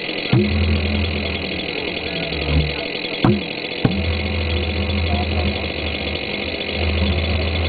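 Small homemade jet engine idling on its first run, with a steady high-pitched rush and a low drone that drops out and comes back. A few sharp pops come near the start and twice a little past the middle.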